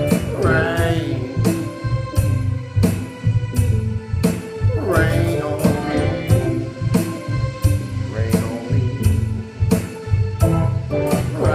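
Gospel music with a steady drum beat, about three hits every two seconds, over a sustained bass, and a voice singing short gliding phrases now and then.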